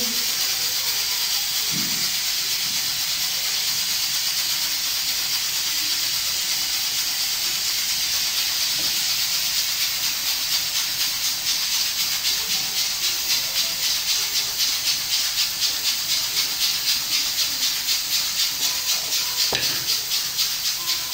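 Pressure cooker on the stove hissing steadily as it vents steam, the hiss taking on a regular pulsing from about halfway through.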